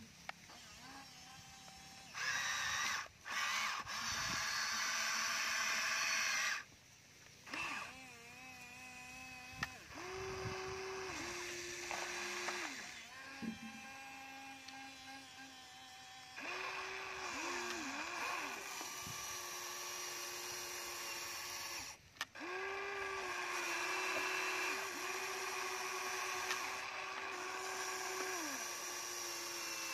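Small electric gear motors of a Huina remote-control toy excavator whining as the excavator works its arm and bucket and turns. The whine starts and stops in stretches of a few seconds, with short pauses between.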